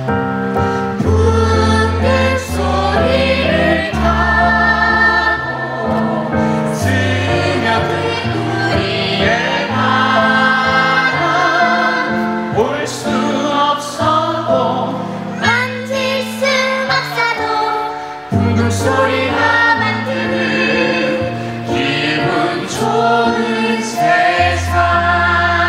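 A woman singing a musical-theatre song into a microphone over a recorded accompaniment with held bass notes, other voices joining in as a chorus.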